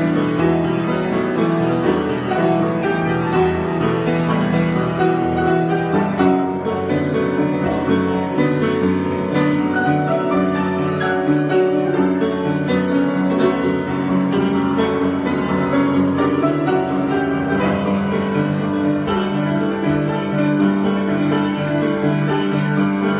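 Piano improvisation: sustained chords with melodic notes above, the harmony shifting about six seconds in and again around seventeen seconds.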